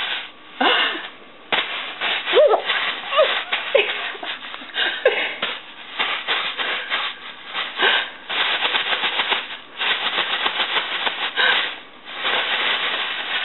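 Plastic bag being crinkled and shaken: a dense crackling rustle in quick, irregular bursts. In the first few seconds a baby makes a few short, high vocal sounds over it.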